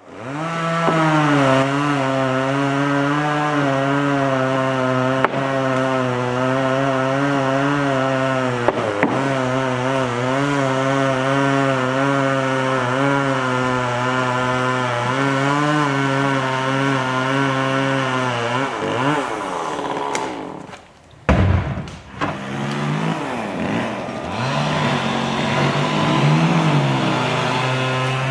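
Gas chainsaw running at steady high revs while cutting. Past the middle, the revs sag and the engine nearly dies, with a short low thump. It then picks up again with rising and falling revs.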